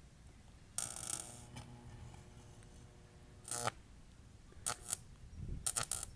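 Cheap multimeter energized on a 7,620-volt primary line: about a second in, a sudden electrical crackle with a steady buzz sets in, lasts about three seconds and ends in a short loud crack, followed by a few sharp clicks near the end.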